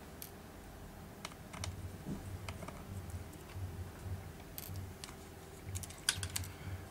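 Scattered light clicks and taps of a small screwdriver working at the flex cable connectors inside an opened tablet, with a quick run of clicks just after six seconds and a faint low rumble of handling.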